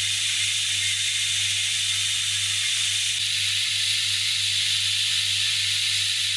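Belt grinder running, its abrasive belt grinding a forged blade held flat against it: a steady hiss over the motor's low hum.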